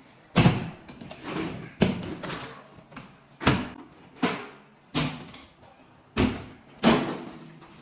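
Kitchen cabinet doors being shut one after another: about eight sharp bangs at uneven intervals, each with a short ring after it.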